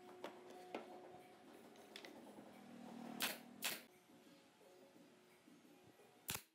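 Pneumatic nail gun firing: two sharp shots about half a second apart, then another near the end, driving nails into pine cabinet boards. Lighter knocks of the boards being handled come before the shots.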